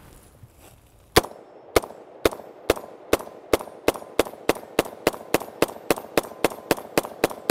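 Daewoo K2 (Max II) 5.56 mm rifle fired in rapid semi-automatic strings, about twenty shots. The shooting starts about a second in, about half a second apart at first, then quickens to about four shots a second.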